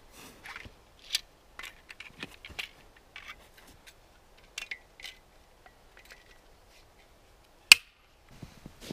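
Small clicks, taps and scrapes of a hand tool being handled and opened out, with one sharp, loud click about three-quarters of the way through.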